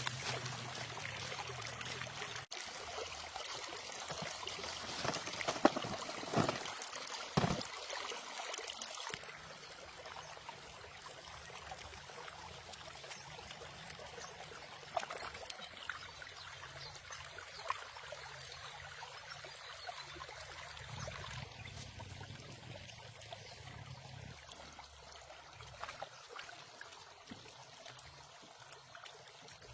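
Water pouring and trickling, louder in the first several seconds, with a few sharp knocks.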